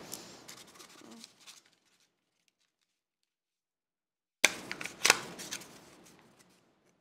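A rolled paper cone being handled and squeezed into shape: two bursts of paper rustling and crinkling with sharp clicks, the first fading out a couple of seconds in and the second starting about four and a half seconds in.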